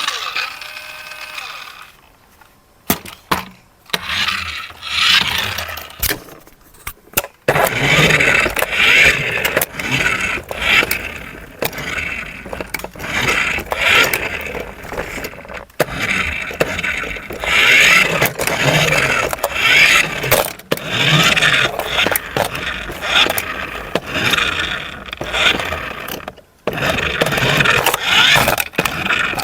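Small electric motors and plastic gearing of a toy RC construction vehicle whirring in uneven spurts, pitch rising and falling, with plastic clicks and scraping; it starts in earnest about seven seconds in after a few short bursts.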